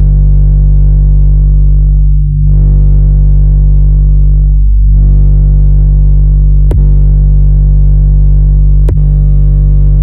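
Loud, steady synthesized bass drone from a subwoofer test track: a deep hum with a stack of overtones that holds one pitch, dipping briefly about two and five seconds in. Sharp clicks cut through it twice in the second half.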